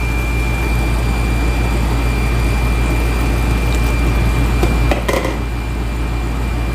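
Steady low electrical hum with a thin high-pitched whine from running kitchen appliances, with one sharp knock about five seconds in, after which the hum drops a little.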